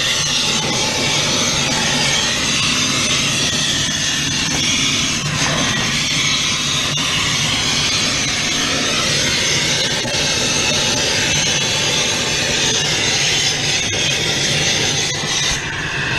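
Hand-held gas torch flame burning steadily: a loud, continuous rush of noise.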